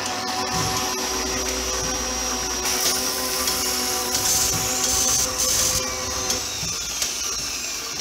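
Sound effects for an animated intro: a steady mechanical whirring hum, with short whooshes sweeping past about three, four and a half and five and a half seconds in. The hum gives way to a high steady whine about six seconds in.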